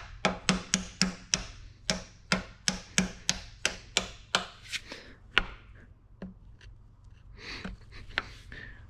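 Hammer tapping a slip-fit part into place in an Eaton 13-speed transmission's auxiliary section: a quick, even run of sharp blows, about three a second, that stops about five and a half seconds in, followed by a couple of lighter taps.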